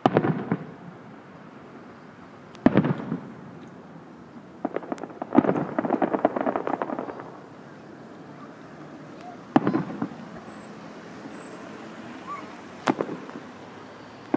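Aerial fireworks shells bursting: sharp bangs every few seconds, each trailing off briefly, with a run of rapid crackling pops from about five to seven seconds in.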